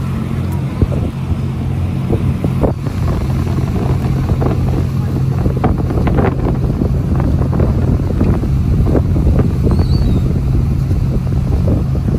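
Sightseeing boat's engine running with a steady low hum, with wind buffeting the microphone in gusts. A gull gives a short faint call about ten seconds in.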